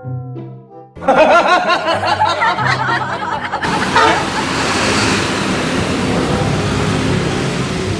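A burst of high, giggling, laughter-like voice sound effect, then a loud steady rushing hiss, over background music.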